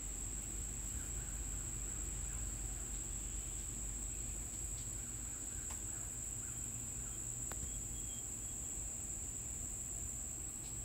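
A steady high-pitched whine over a low background hum, with a few faint ticks.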